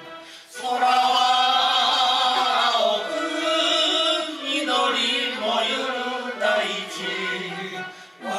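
A group of older men and women singing a song together, amplified through a microphone. A sung phrase comes in about half a second in and carries on, dropping off briefly near the end.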